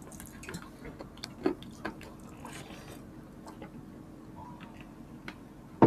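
Close-up eating sounds: wet chewing, lip smacks and small sticky clicks as two people eat creamy chicken pastel and rice with their hands. A single sharp click sounds near the end.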